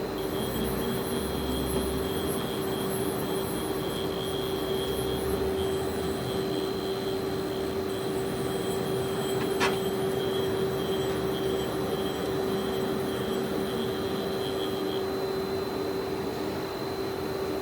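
Steady electrical-mechanical hum of a powered-up Hardinge GS-51 CNC turning center standing idle, with a constant high whine above it. A single sharp click about ten seconds in.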